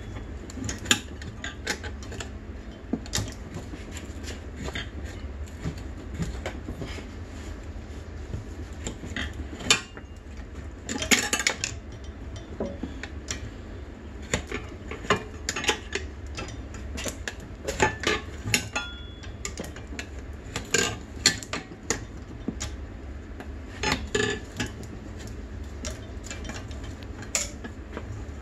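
Steel tire irons clinking and scraping against a dirt bike's spoked metal rim as a tire bead is levered over it: irregular sharp metal clinks and taps, with a steady low hum underneath.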